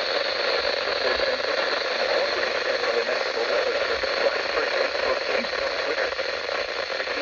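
Steady hiss of radio static on a weakly received weather radio broadcast, with a voice faintly audible under it.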